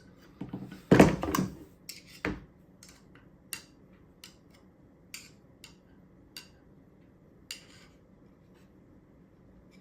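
Steel screwdriver shafts clicking and clinking against each other as their magnetised tips snap together. A couple of louder knocks in the first few seconds, then scattered light clicks.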